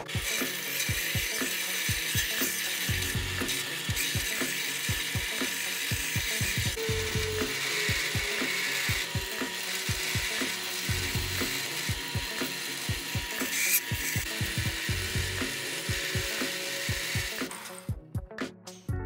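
Bench belt grinder grinding a steel knife blade: a steady, dense, high hiss of steel on the abrasive belt that stops near the end. A steady low beat from background music runs underneath.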